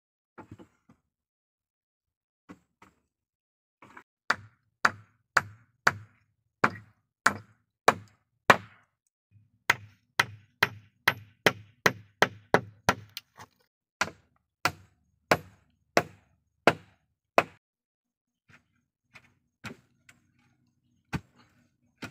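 A hatchet blade chopping into the soil at the foot of a wooden post. It strikes in a steady series of sharp blows, about two a second, bunching closer together in the middle and thinning out to scattered blows near the end.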